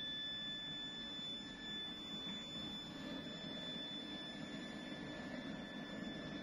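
A steady high-pitched whine at two pitches, one about double the other, over a low even rumbling noise, with no change throughout.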